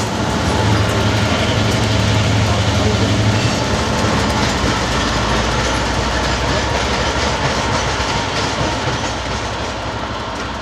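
Train rolling past at close range, wheels clicking over the rail joints. A low hum drops away about three seconds in, and the sound slowly fades near the end.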